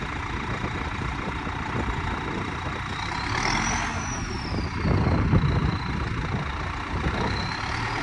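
Farm tractor engine running, with a high whine that climbs about three seconds in, falls back, and climbs again near the end.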